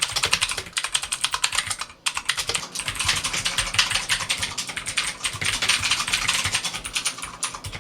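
Fast typing on a Redragon K580 VATA mechanical keyboard: a rapid, continuous run of key clicks with a brief pause about two seconds in.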